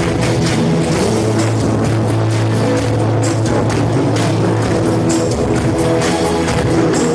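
Instrumental band music from a live pop medley: held chords and a long low bass note over regular drum hits, with no singing.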